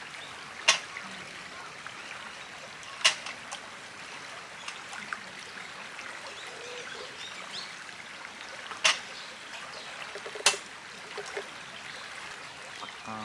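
River water running steadily, with four sharp snaps spaced a few seconds apart standing out above it.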